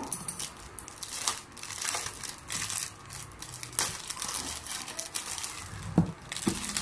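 Clear plastic packaging crinkling and rustling in irregular bursts as it is handled and pulled off, with one sharper knock about six seconds in.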